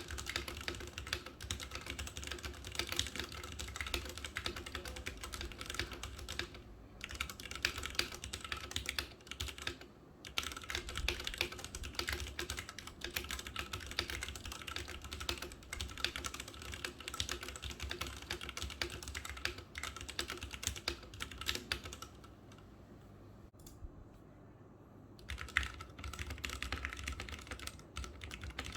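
Steady, fast typing on a Ducky One 2 SF mechanical keyboard with linear Cherry MX Red switches: a dense run of key clacks. The typing stops for about three seconds past the middle, then starts again.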